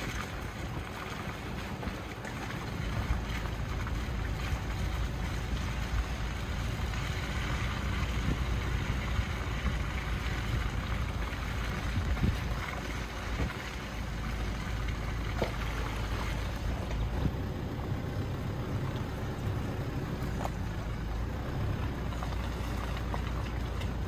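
A car driving along a forest road: steady tyre and wind noise with a low rumble that grows louder about three seconds in, and a few faint ticks scattered through it.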